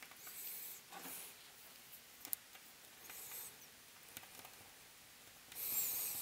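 Pen tip marking paper through the mounting holes of a power resistor: faint short scratches on the sheet, with a few light clicks, the longest scratching near the end.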